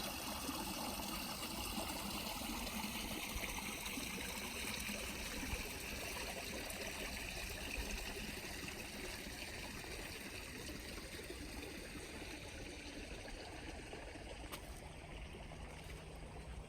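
Water of a stone-lined garden stream running and trickling over small cascades, a steady rushing that slowly softens toward the end.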